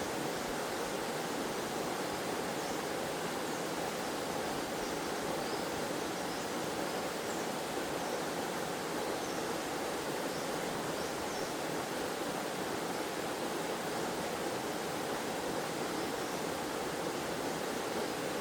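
Waterfall in a forest: water pouring and splashing in a steady, even rush that does not change.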